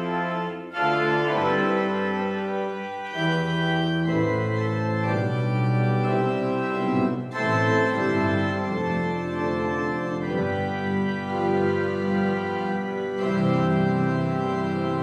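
Pipe organ playing full sustained chords that change every second or so, with two short breaks between phrases, about a second in and about halfway through.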